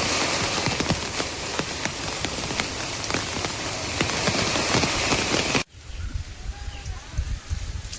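Heavy rain falling, with many separate drops spattering close by over a dense hiss. About two-thirds through it cuts off suddenly to a much quieter background with a low rumble.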